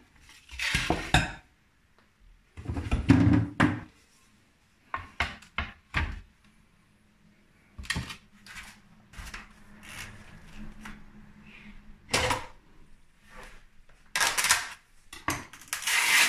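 Kitchen worktop handling: a glass mixing bowl moved and a wooden chopping board set down, a series of separate knocks and clunks, the loudest about three seconds in.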